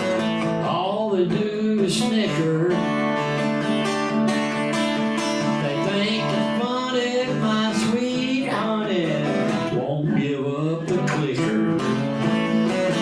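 Acoustic guitar strummed steadily through an instrumental break in a country song.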